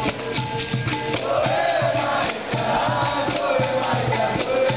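Capoeira roda music: a twanging berimbau and a pandeiro keep a steady beat, and from about a second in a group sings the chorus together.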